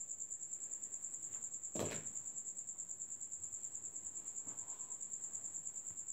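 A cricket chirping steadily in a fast, even, high-pitched pulse, with a single knock about two seconds in.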